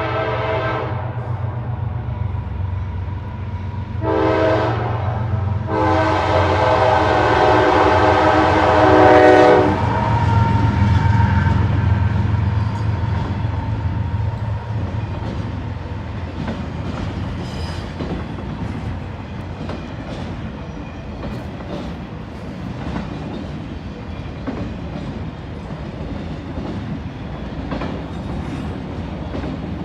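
Freight locomotive air horn sounding a chord: the end of one blast, a short blast, then a long blast of about four seconds. The CSX diesel locomotives' engines then rumble past and the autorack cars follow with steady wheel clickety-clack on the rail joints.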